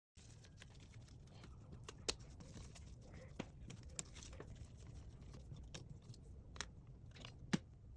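Scattered sharp clicks and taps of small tools and parts being handled during laptop disassembly, the loudest about two seconds in and near the end, over a faint low hum.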